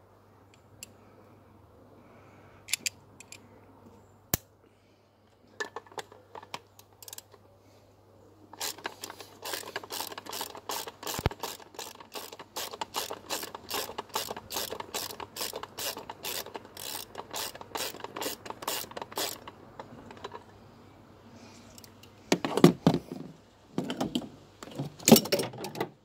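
Socket ratchet clicking steadily, about five clicks a second, as a fastener on the engine is turned. Near the end come a few louder metallic clunks of tools or parts being handled.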